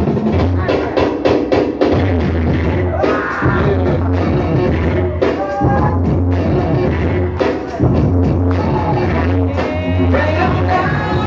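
Loud music with a steady, heavy bass line, a drum beat and a singing voice.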